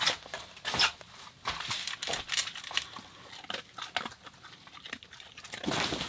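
A series of sharp crunches, roughly one every second, growing busier near the end.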